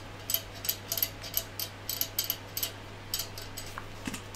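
Screw being driven in with a hand screwdriver: a run of sharp ticks, about three a second, that stops about three and a half seconds in, followed by a single duller knock near the end.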